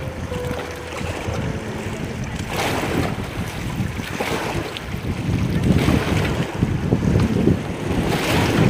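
Sea waves washing and breaking on a beach, swelling in several surges, with wind rumbling on the microphone.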